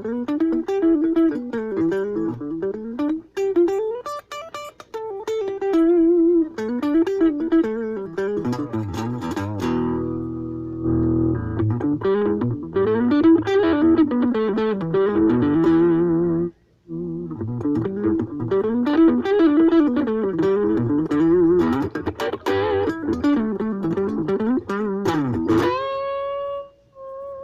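Ibanez AXS42 guitar, wired with solid-core vintage wire, played through its pickups: fast single-note melodic runs, a chord let ring about ten seconds in, a short break just past halfway, and a note bent up and held with vibrato near the end.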